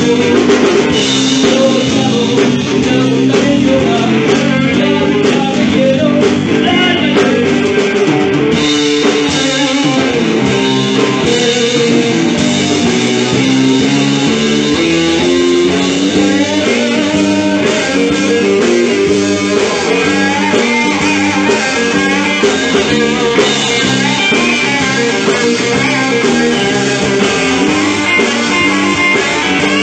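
A live blues-rock trio playing steadily: electric guitar over bass guitar and drum kit.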